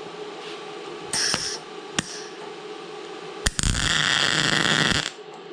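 MIG welder arc on a rusty broken bolt stub, welding right through the rust: a brief burst about a second in, then, after a sharp click, a steady arc for about a second and a half from about three and a half seconds in.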